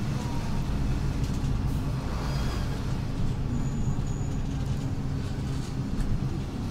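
City bus driving along, heard from inside the passenger cabin: a steady low engine drone with road noise.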